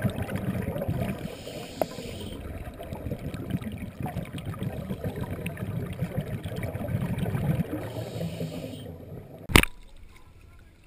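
Muffled underwater noise picked up through a waterproof camera housing: irregular low crackling and bubbling, with two brief stretches of hiss. One sharp loud crack comes near the end.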